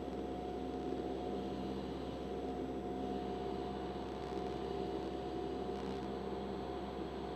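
Cessna 172's piston engine and propeller droning steadily in flight, heard inside the cabin, with a hum of several steady tones over a rushing noise.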